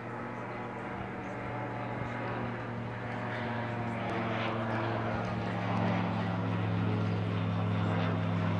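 Engine and propeller of a small light airplane flying overhead, a steady hum that grows louder as the plane comes nearer.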